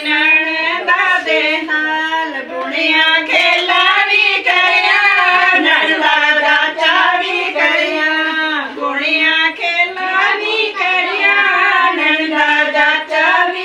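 Women singing a wedding song in high voices.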